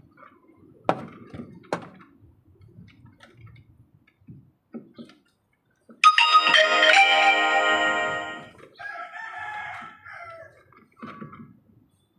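A rooster crowing once about six seconds in, a loud call of about two and a half seconds trailing off more weakly. Two sharp knocks come earlier, in the first two seconds.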